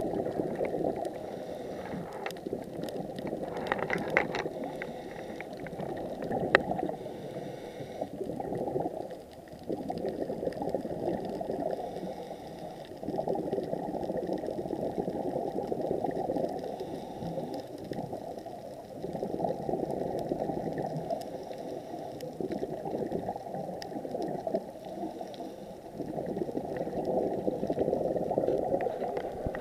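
Muffled bubbling and rushing water heard underwater, swelling and fading every few seconds, with a few faint clicks.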